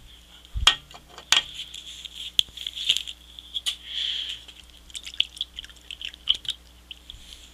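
Plastic water bottle handled with scattered clicks and taps, and water poured briefly from it into a plastic measuring cup about four seconds in.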